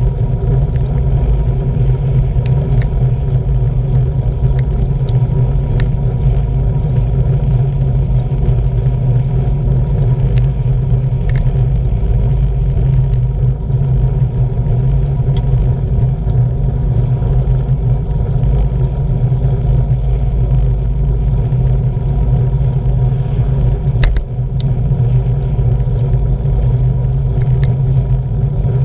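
Wind rumble and tyre-on-tarmac noise from a road bike riding at about 20 mph, picked up by a bike-mounted action camera, with a few light clicks and rattles.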